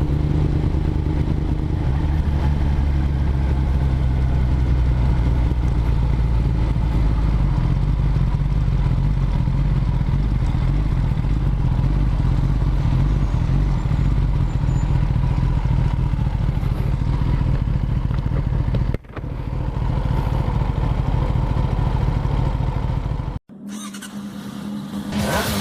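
Kawasaki Ninja ZX-10R inline-four superbike engine running steadily while riding. It cuts out suddenly near the end, giving way to a quieter, different sound.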